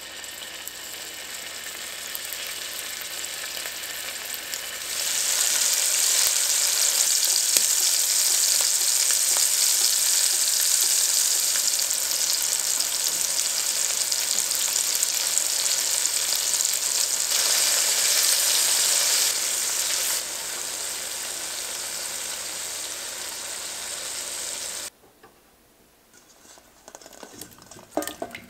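Cubes of beef searing in hot oil in an enameled cast-iron Dutch oven: a steady sizzle that grows louder about five seconds in and cuts off suddenly near the end, followed by a few light knocks.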